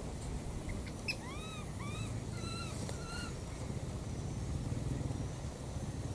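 An animal gives four short, high calls about a second in, the first two arching up and down and the last two held flat. They sit over a steady low rumble.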